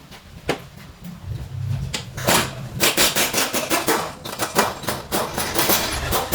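A hammer striking metal on a car's front suspension parts: a single knock, then from about two seconds in a fast, uneven series of blows, about three to four a second.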